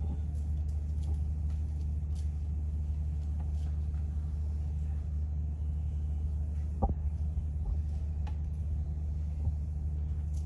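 Steady low hum, with a couple of faint knocks near the end.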